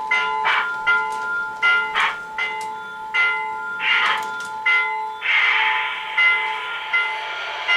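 A bell ringing over and over, struck about twice a second, as from an O-gauge model train's locomotive sound system. About five seconds in, a steady hiss joins the bell.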